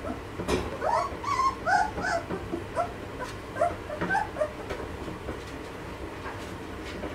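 Litter of two-and-a-half-week-old Belgian Malinois puppies whimpering and squeaking, many short high calls thick in the first four seconds or so, then thinning out.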